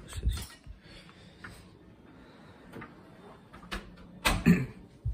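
Scattered short knocks and clicks, about half a dozen, the loudest a close pair about four and a half seconds in.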